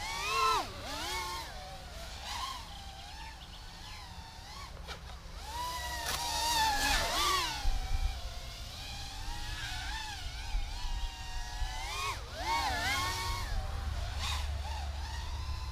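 Mini 130 mm FPV racing quadcopter's 1306 brushless motors and three-inch props whining, the pitch swooping up and down with quick throttle punches as it flies about, loudest about six to eight seconds in and again around twelve to thirteen seconds.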